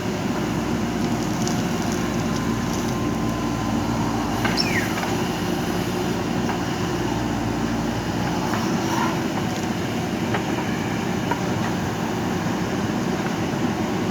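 JCB 3DX backhoe loader's diesel engine running steadily as the machine works, with a brief high, falling squeal about four and a half seconds in.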